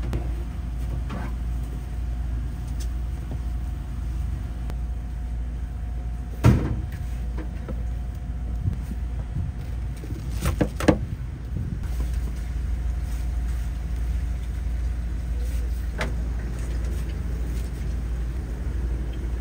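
Steady low motor rumble of a food truck's running machinery, with a thin steady hum over it. A few sharp knocks and clatters stand out: one loud one about six seconds in, a pair around eleven seconds, and a lighter one later.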